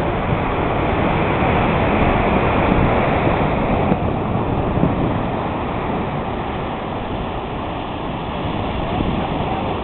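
Steady rushing noise of ocean surf breaking on a rocky shore, mixed with wind buffeting the microphone.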